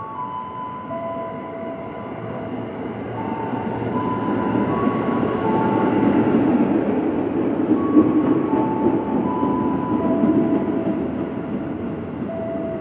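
KRL Commuterline electric multiple unit pulling into the station, its running noise building as the cars come alongside, loudest midway, then easing as the train slows to a stop.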